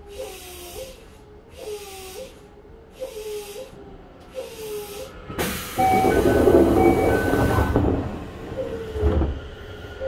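Toei 5300-series commuter train standing with its doors open: a hiss with a wavering tone repeats about once a second. Halfway through comes a loud rush with two beeps as the doors close, and they shut with a thump near the end.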